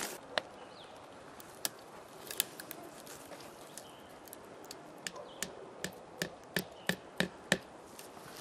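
Nails being hammered into a tree trunk: a few light, sharp strikes at first, then a steady run of about three strikes a second over the last few seconds.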